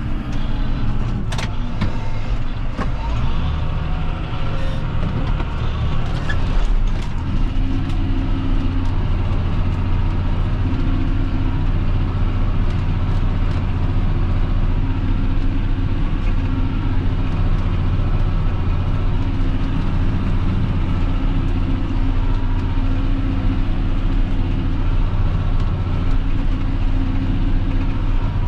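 John Deere 6530 tractor's diesel engine running steadily, heard from inside the cab while pulling a plough. A few sharp clicks come in the first seven seconds, then the engine settles into a steady, stronger low drone.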